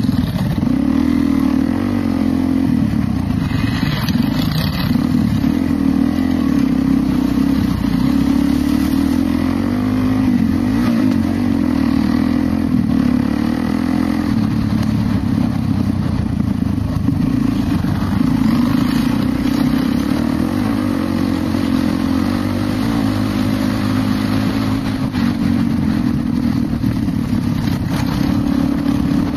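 Dirt bike engine running continuously while riding a trail, its pitch wavering a little with the throttle.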